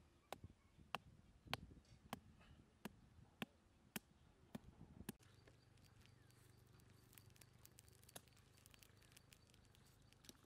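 A machete striking the top of a wooden stake to drive it into the ground: about nine sharp knocks, nearly two a second. About halfway through they stop, and a fire of dry twigs crackles with faint quick snaps over a low steady hum.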